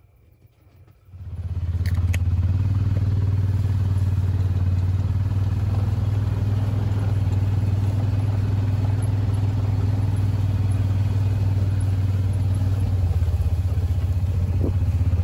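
Honda side-by-side UTV's engine running steadily as it drives. The engine comes in loudly about a second in, with a couple of light clicks just after.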